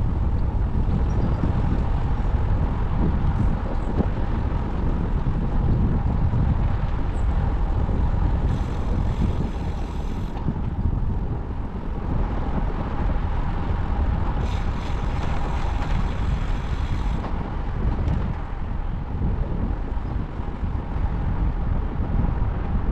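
Wind rushing over the microphone with road and tyre rumble from a road bike riding along at a steady pace. Twice, for about two seconds each, a higher hiss joins in.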